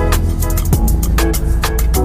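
Background music with a steady beat: a deep bass line, a kick drum about twice a second, and crisp cymbal hits on top.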